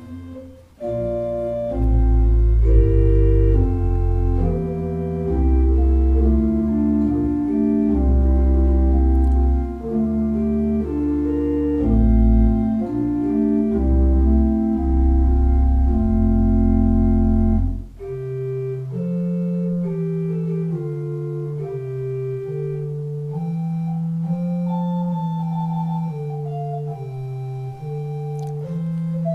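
Church pipe organ playing a slow prelude in sustained chords over deep pedal bass notes. About two-thirds of the way through, the pedal bass drops out and the organ goes on more softly in a lighter, higher registration.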